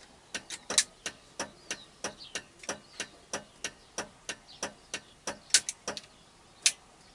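MAZ-5551 truck's turn-signal flasher relay clicking in a steady rhythm, about three clicks a second, with a sharper single click near the end as it stops. The indicator circuit is being tried on a newly fitted turn-signal switch that works in one direction but not the other.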